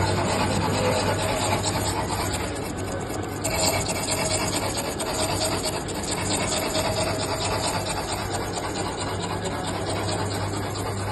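Milling machine running, with a steady low hum under a continuous rasping, grinding noise.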